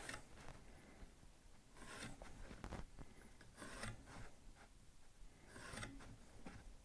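Pencil ruled along a metal try square across a plywood board: several faint, short scratching strokes, one about every second, as the kerf cut lines are marked.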